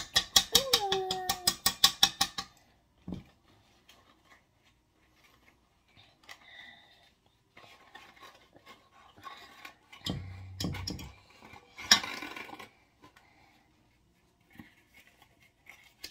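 Wire whisk beating brownie batter against the side of a stainless steel pot, a fast, even clatter of about eight strokes a second that stops about two and a half seconds in. After that come softer scattered rustles and knocks, with one sharp click about twelve seconds in.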